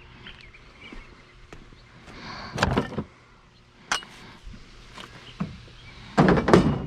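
A few knocks and clunks of curbside scrap being handled and loaded into a pickup truck: a group of clunks about two and a half seconds in, a single sharp knock near four seconds, and the loudest burst of knocks near the end.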